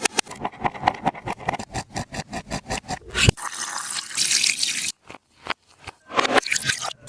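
Taba squishy being squeezed by hand: a fast run of crinkly plastic clicks, about eight a second, then a longer plastic crackle and rustle, followed by short squeezes cut off sharply.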